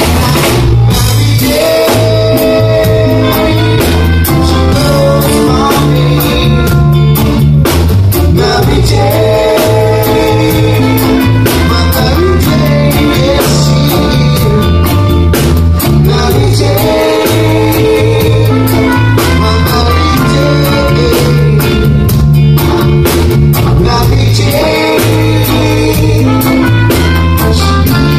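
Live reggae band playing: a repeating electric bass line, drum kit and electric guitars, with a lead singer's vocal over them.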